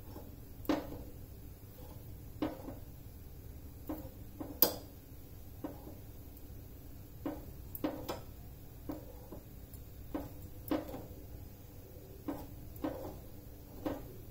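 Long steel kitchen tongs (chimta) clicking and tapping against the gas burner's pan support as a roti is turned and lifted over the open flame. The clicks come sharp and irregular, about fifteen in all, the loudest about a third of the way in, over a low steady rumble.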